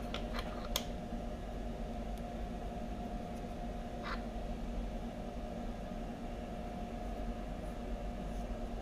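Steady motor hum in a machine shop, with a few light clicks in the first second and a brief squeak about four seconds in.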